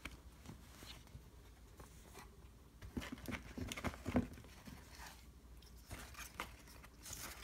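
Faint rustling and light clicks of card and paper being handled, busiest about three to four seconds in.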